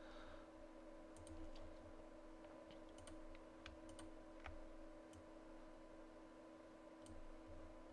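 Faint, scattered clicks of a computer mouse and keyboard over a steady low hum.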